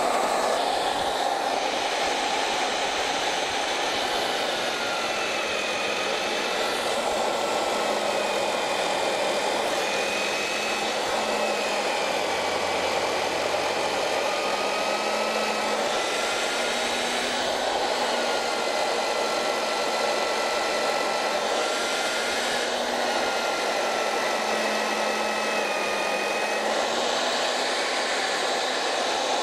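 Merax FE-50 magnetic base drill running steadily while its cutter bores through steel plate, with a motor whine that wavers slightly in pitch under the cutting load.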